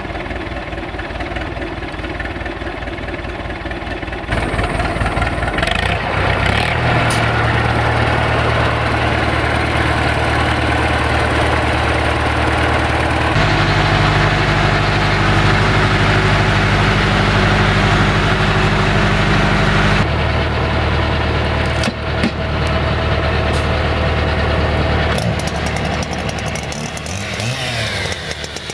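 UTB U651M tractor's diesel engine running: a steady idle at first, then at higher steady revs about four seconds in, with a stretch heard from inside the cab as the tractor drives. Near the end some sharp clicks and brief rising whines join the engine.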